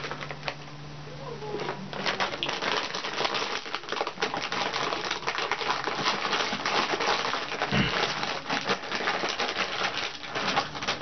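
Foil-lined plastic snack bag crinkling and crackling as it is handled and opened, in a rapid irregular run of rustles. A dull thump about two-thirds through.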